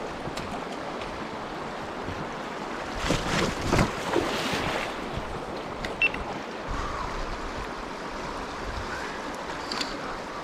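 Fast, snowmelt-swollen stream rushing steadily, with a brief louder burst of noise about three seconds in and a sharp click about six seconds in.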